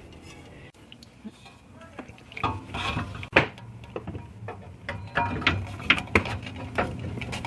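Metal parts clinking and knocking as they are handled: a scatter of sharp clicks, more frequent in the second half.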